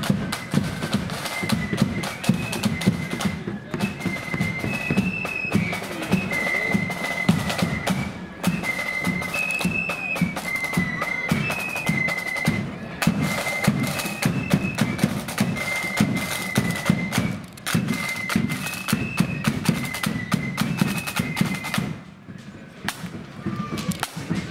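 Marching flute band playing a high tune on flutes over rattling snare drums and a bass drum. The tune stops near the end, leaving only a few drum strokes.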